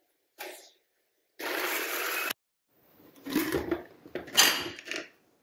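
Countertop blender pulsed once for about a second, chopping shallots, starting and stopping abruptly. Then a run of knocks and clatter as the glass jar is lifted off the base and the lid is taken off.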